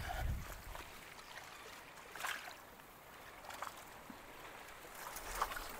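Faint water lapping and splashing against jetty rocks, with a few short splashes about two, three and a half and five and a half seconds in. A brief gust of wind on the microphone at the start.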